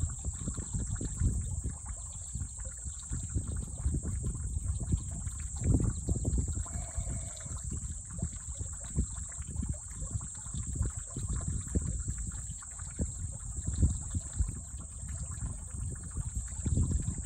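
Shallow water sloshing and splashing irregularly as two common snapping turtles wrestle, over a gusty low rumble of wind on the microphone. A steady high insect drone runs underneath.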